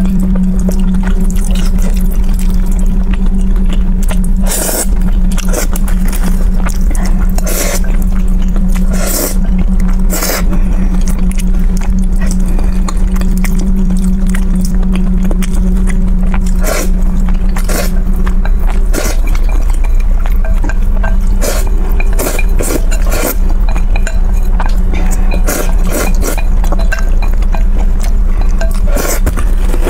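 Close-miked eating of saucy noodles: irregular wet slurps and mouth smacks, with wooden chopsticks clicking and scraping on a ceramic bowl as the last strands are gathered up.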